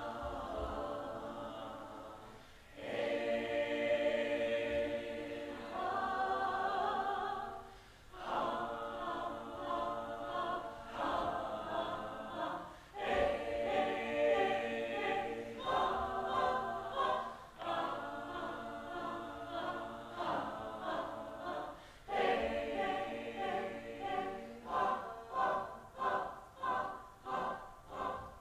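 A group of voices singing together, apparently unaccompanied, in sustained phrases a few seconds long. Near the end the singing changes to short, repeated syllables, a little under two a second.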